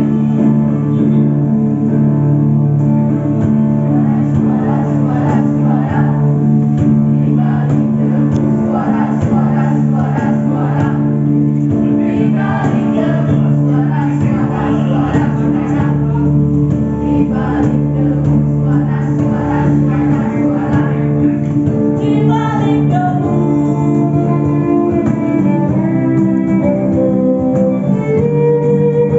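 A band playing the opening of a song, with sustained low notes held underneath. A higher melody line comes in about three-quarters of the way through.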